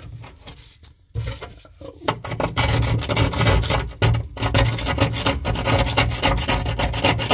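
Power grinder with an abrasive disc grinding on a rusty metal drain pipe, throwing sparks: a steady motor hum under a rough rasping that starts about a second in and breaks off briefly twice as the disc is lifted.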